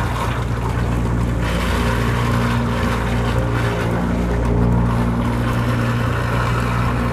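Gorman-Rupp self-priming pump running steadily, a constant low hum under a broad rushing noise that swells about a second and a half in. A vortex is drawing air down its suction line from a wet-well level too low for the suction's submergence.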